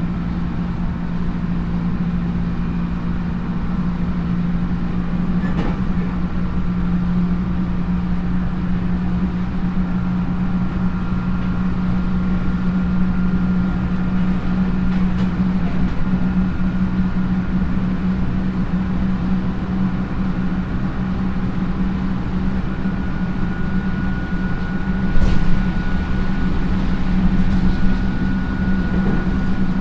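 Running sound inside a JR 311 series electric train, motor car KuMoHa 311-2, which has DC traction motors under field-added excitation control. The train runs at a steady speed: a steady low motor and gear hum over the rumble of wheels on rail. A faint high steady tone comes in partway through, and there are a couple of thumps, the loudest about 25 seconds in.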